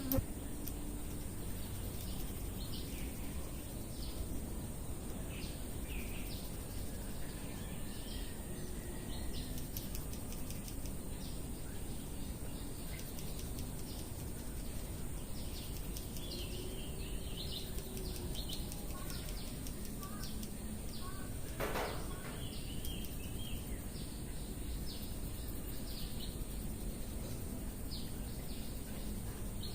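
Small birds chirping now and then over a steady background hiss.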